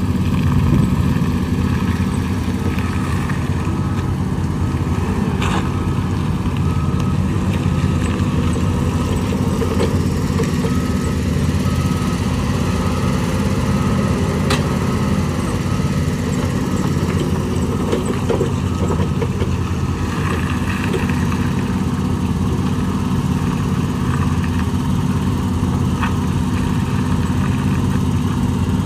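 Hyster forklift's engine running steadily as it is driven about, with a few brief clicks.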